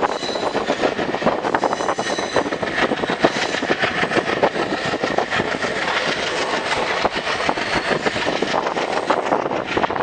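Passenger train running on the rails, heard from an open window of one of its coaches: a steady, dense clatter and rattle of wheels on track.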